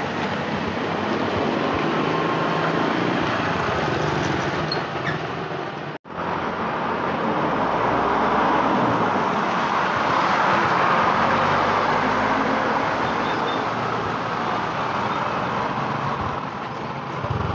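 Steady road traffic noise, swelling louder with a deeper rumble about eight to twelve seconds in as heavier traffic passes. The sound drops out for an instant about six seconds in.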